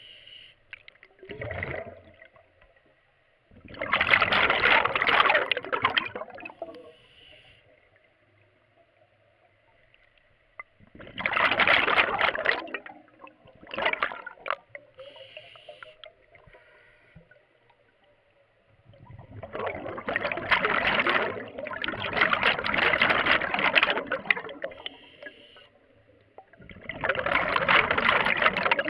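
Scuba diver breathing through a regulator underwater: four loud rushes of exhaled bubbles a few seconds apart, with quieter gaps between breaths. A faint steady whine runs underneath.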